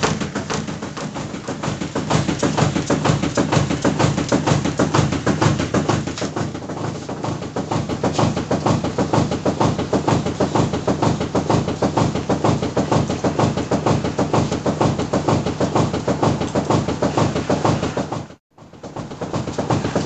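Twin-tub washing machine running with a fast, steady knocking rhythm that sounds like dhol drumming; the audio drops out briefly near the end.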